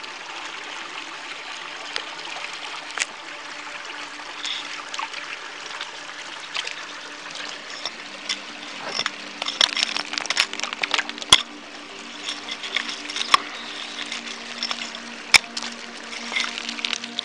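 Shallow woodland stream trickling steadily over rocks. From about eight seconds in, a run of sharp clicks and knocks of loose rock joins it.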